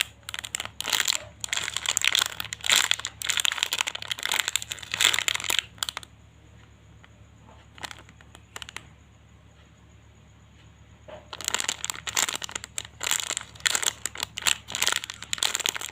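Plastic packaging crinkling as a squishy toy is handled, in two spells separated by a quieter pause of about five seconds in the middle.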